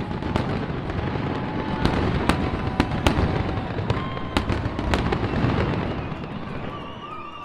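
Fireworks display: many sharp bangs and cracks over a continuous low rumble, with a few long whistles; the bangs thin out and the level falls in the last second or two.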